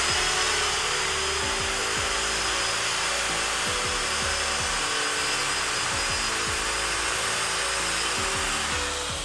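Handheld wood router running and cutting into a wooden strip, a steady, loud whine with cutting noise that winds down near the end.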